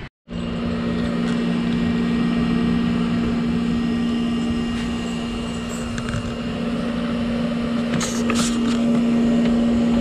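High-power 12-volt fan on a Nature's Head composting toilet's exhaust, running steadily: a constant white-noise rush of air over a low, even hum.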